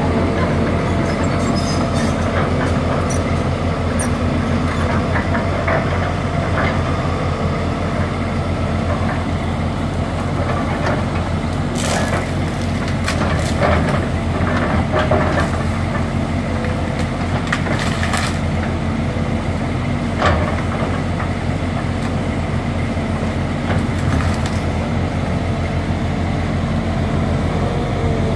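Volvo crawler excavator's diesel engine running steadily, with cracking, snapping and crunching as its bucket tears through shrubs and demolition debris, the cracks coming in clusters from about halfway through.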